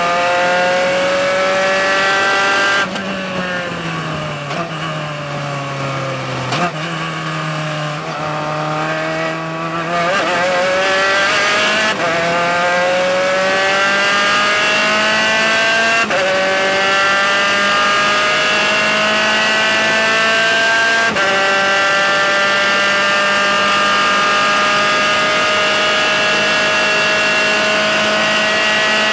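Spec Racer Ford's four-cylinder engine heard from the cockpit at racing speed. It winds down as the driver lifts for a corner, drops a gear a little over six seconds in, then revs back up through the gears, upshifting about halfway and again about two-thirds through.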